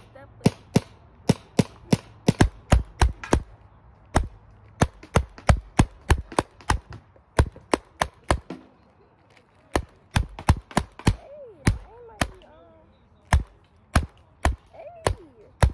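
Paintball markers firing: sharp pops in quick, irregular runs of several shots a second, with a break of over a second past the middle and another lull a little later.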